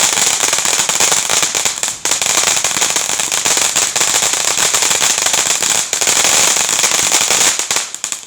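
Consumer firework giving off a loud, dense, continuous crackling of many tiny pops, briefly thinning about two seconds in and again near the end.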